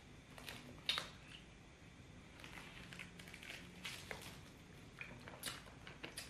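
Quiet table-side handling sounds: scattered soft clicks, crackles and squishes from a plastic Sprite bottle being drunk from and handled and from durian flesh being pulled apart, with one sharper click about a second in.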